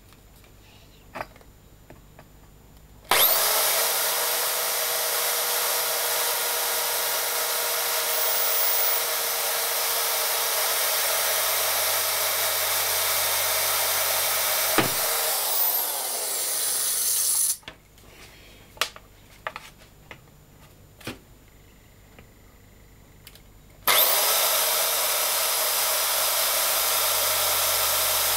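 A power tool cutting holes in the wooden top panel of a speaker box: it starts abruptly and runs steadily for about fourteen seconds, stops, a few knocks follow, then it starts again near the end.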